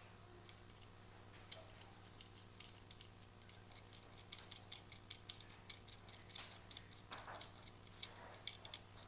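Faint, irregular clicking and ticking of hand tools and small metal parts being handled, growing busier partway through, with a few louder knocks near the end.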